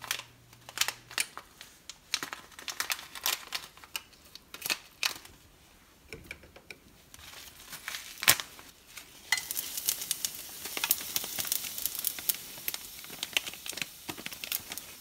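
Crinkling and clicking of a spice packet being handled, then, about nine seconds in, dried spices tipped into a hot, well-oiled pan sizzle and crackle steadily as they flash fry.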